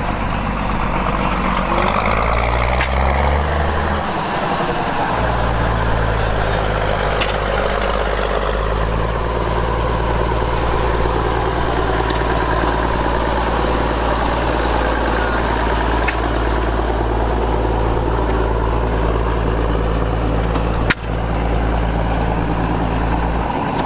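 An engine running, its pitch rising over the first few seconds and then settling into a steady run. A single sharp click comes about 21 seconds in.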